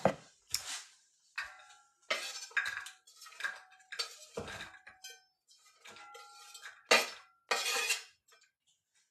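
A metal utensil clinking and knocking against an old aluminum pan on the stove, about a dozen separate strikes and scrapes, several ringing briefly.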